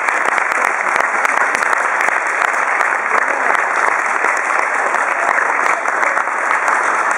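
Audience applauding: many people clapping steadily and without a break.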